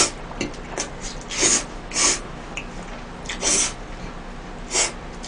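A person slurping spaghetti noodles off chopsticks, with four loud, short slurps and faint wet mouth clicks between them.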